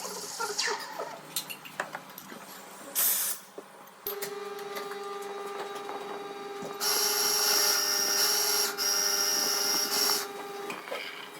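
Espresso machine at work: clatter of equipment, a short blast of hiss, then a steady machine hum from about four seconds in. About seven seconds in a loud steam hiss with a high whistle starts and runs for about four seconds, typical of a steam wand steaming milk.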